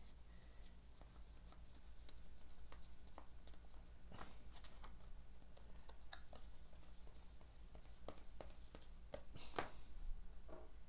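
Trading cards handled by hand: soft clicks and light slaps of card stock as cards are flipped through and turned over, with a louder tap near the end as a stack is set on the table. A steady low electrical hum runs underneath.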